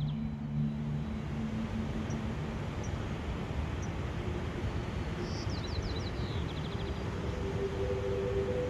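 Steady outdoor rushing noise with a faint motor hum, low at first and higher near the end. A small bird's short, falling trill comes near the end.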